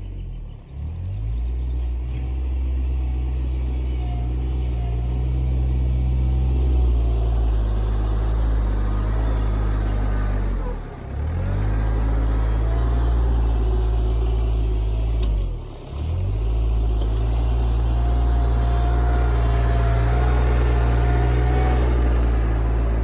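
Kioti RK24 compact diesel tractor's engine running steadily at working revs, its note sagging briefly and picking back up three times.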